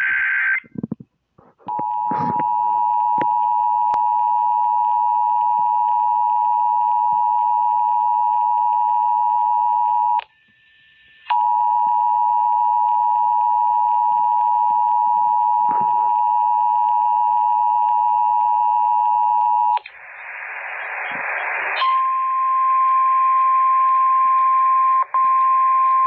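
Emergency Alert System two-tone attention signal from a small weather radio's speaker. It sounds for about eight seconds, drops out for a second, then sounds again for about eight seconds. A burst of static follows, then the single steady NOAA Weather Radio alert tone over hiss. The listener puts the garbled alert down to a broken station encoder.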